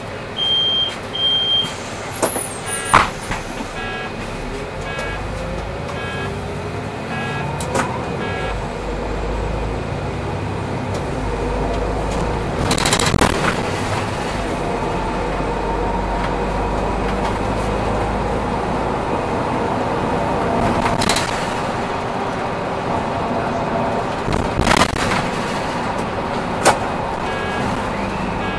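Solaris Urbino 8.9LE city bus heard from inside as it pulls away from a stop: two short high beeps, then the turn indicator ticking evenly while the engine and drivetrain rise in pitch as the bus accelerates. After that comes a steady low driving rumble with a few sharp knocks and rattles from the body, and the indicator ticks again near the end.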